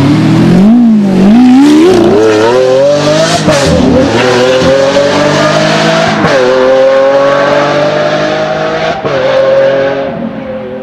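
Lamborghini Aventador's 6.5-litre V12 through a Supersprint exhaust, revving and then accelerating hard, its pitch climbing through the gears with three upshifts, each a sudden drop in pitch. It grows fainter near the end as the car pulls away.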